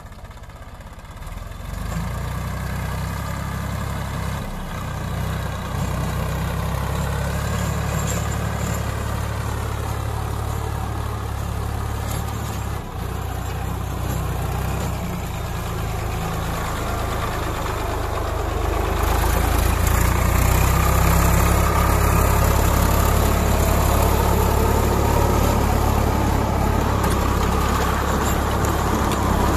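Swaraj 960 FE tractor's diesel engine running steadily under load while it drives a rotary tiller through dry soil. The sound swells in over the first couple of seconds and gets louder again about two-thirds of the way through.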